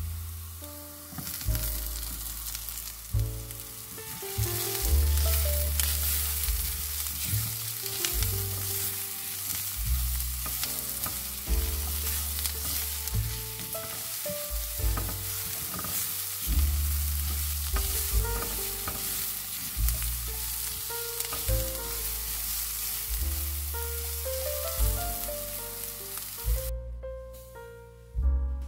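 Onions, garlic and red bell pepper strips sizzling in oil in a nonstick frying pan, with a spatula stirring and scraping through them. Background music with a bass line plays underneath, and the sizzling stops near the end, leaving only the music.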